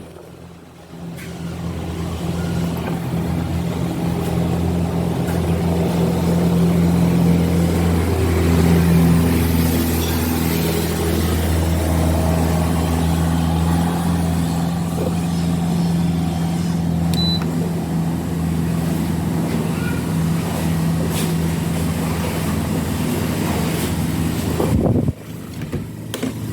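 A steady low droning hum with a wide rushing haze over it, like an engine or motor running.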